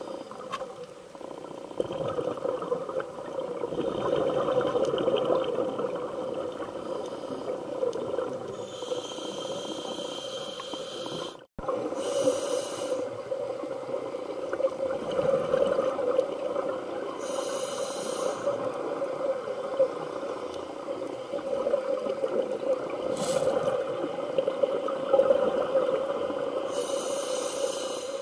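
Scuba diver's regulator breathing, heard muffled from inside an underwater camera housing. Exhaled bubbles make a steady rumbling bubbling, and every several seconds comes a short hiss of inhalation. The sound drops out for an instant about eleven seconds in.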